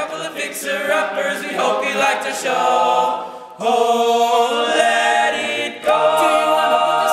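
Male a cappella group singing in close harmony, holding sustained chords. A brief dip is followed by a fresh loud entry about three and a half seconds in, and another comes near six seconds.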